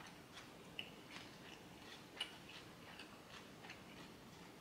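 Faint closed-mouth chewing of a mouthful of food: soft, irregular wet clicks and smacks.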